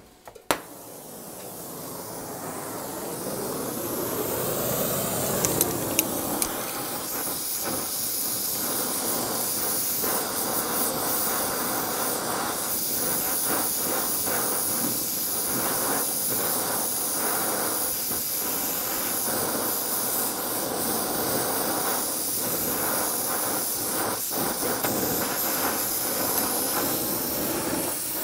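Oxy-fuel torch flame hissing steadily as it heats the tapered horn of a forged steel ram's head so it can be twisted. It starts with a couple of sharp pops as the torch is lit, grows louder over the first few seconds, then holds steady, with a few brief clicks about six seconds in.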